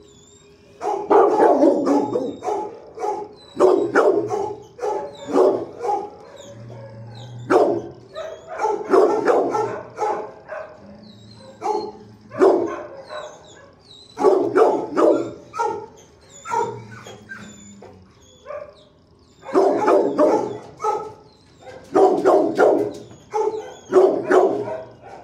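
Dog barking in runs of several quick, loud barks, with pauses of a second or two between the runs.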